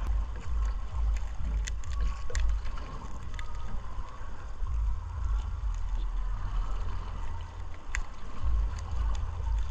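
A fine gill net being worked by gloved hands on a small boat, with scattered small clicks and rustles of net and fish over a steady low rumble.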